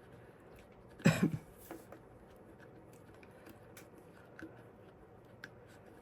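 A short clatter of small knocks about a second in, then scattered faint clicks: silicone molds being handled and set down on a work surface.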